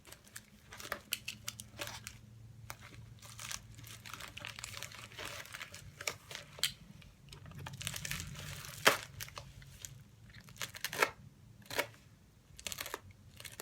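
Packaging being handled: irregular crinkling and rustling with scattered sharp clicks, the loudest a snap about nine seconds in.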